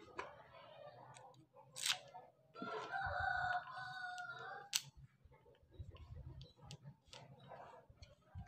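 Two sharp metallic clicks, a screwdriver against the router's metal housing, about two seconds in and again near five seconds. Between them a rooster crows, one long call held for nearly two seconds.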